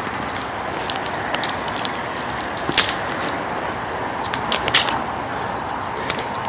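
Steady rush of running water from a small stream dammed in the woods, with a few sharp snaps near the middle.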